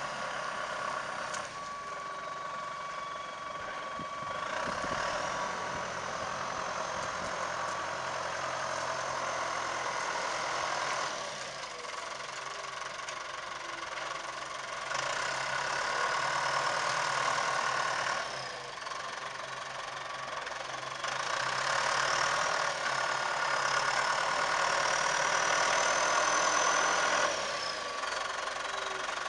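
John Deere farm tractor's diesel engine working under load while pulling a ripper through the soil. Its loudness swells and drops several times, and a high whine rises and falls along with it.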